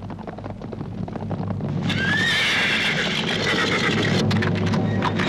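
Horses' hoofbeats clattering and growing louder, with a horse whinnying from about two seconds in.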